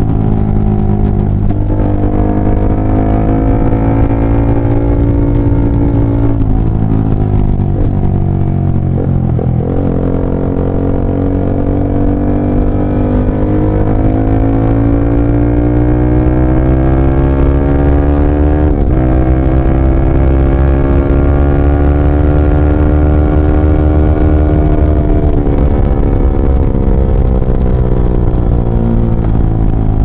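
Yamaha R15 V3's 155 cc single-cylinder engine running through a LeoVince GP Corsa carbon short exhaust while riding: the exhaust note climbs steadily under throttle and drops sharply at gear changes, several times over.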